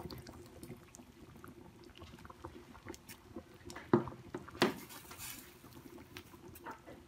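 Pot of boiling water bubbling as meat is parboiled and stirred in it, with small clicks from the utensil. Two sharper knocks come about four seconds in.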